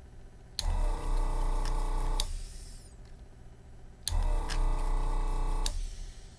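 Yihua 948 desoldering station's vacuum pump running twice, each time for about a second and a half, with a steady hum that starts and stops with a click: the pump sucking molten solder off a joint.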